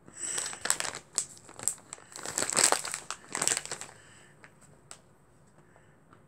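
Snack bag crinkling as it is handled, for about four seconds, then a few faint clicks.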